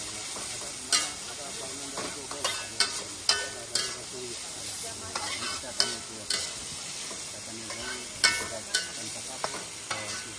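Sliced bamboo shoots sizzling in hot oil in a wok, a steady hiss, while a spatula stirs them and scrapes and knocks against the pan in sharp irregular clicks, about a dozen in all.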